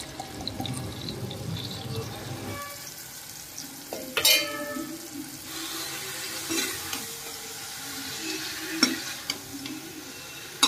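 Vegetables frying in oil in a kadhai while a metal spatula stirs and scrapes them, with sharp clinks of the spatula against the pan, the loudest about four seconds in.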